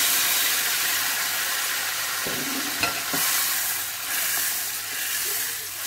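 Chopped tomatoes sizzling in hot oil in a nonstick wok just after being added, with a steady frying hiss. A wooden spatula stirs them, knocking lightly against the pan a few times between two and three seconds in.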